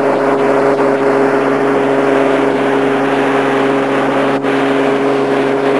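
Four Winds 195 Freedom boat's engine running steadily under way at speed, a constant drone, with a steady rush of wind and water.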